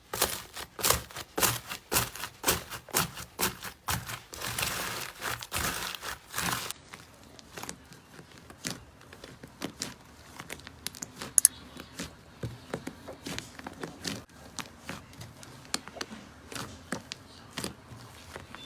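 Slime being squeezed and poked, giving dense crackling and popping for the first six or so seconds, then fainter, scattered clicks and pops.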